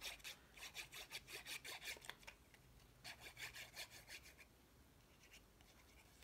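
Applicator tip of a liquid glue bottle rubbed back and forth across cardstock, spreading glue: two runs of quick, faint, scratchy strokes, about six a second, with a short pause between.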